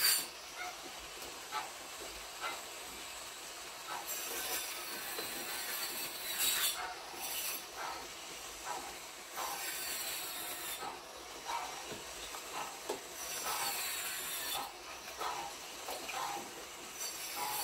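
Kitchen work sounds: light clicks and knocks over a hiss that swells and fades several times.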